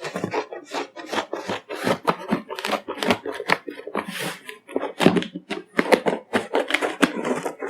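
Delivery packaging being cut and torn open by hand: a run of irregular scraping, rustling and tearing noises.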